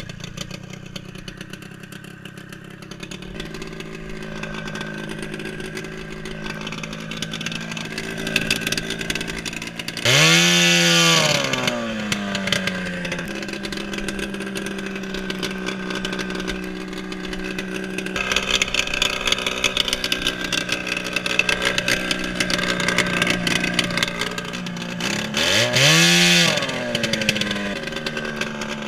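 1996 Ski-Doo MXZ 583 snowmobile's two-stroke twin engine running at low speed, revved hard twice: about ten seconds in and again near the end, its pitch climbing sharply, then dropping back.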